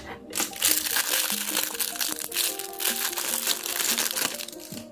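Clear plastic packaging bag crinkling loudly as it is handled, over background music.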